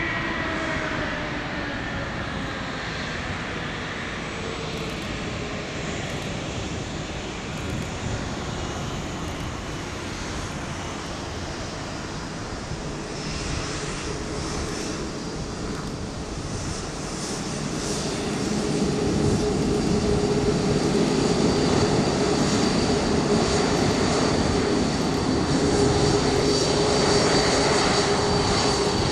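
Boeing 787-9 Dreamliner taxiing, its jet engines running at taxi power with a steady hum and a high whine. It grows louder about two-thirds of the way through as the airliner draws nearer.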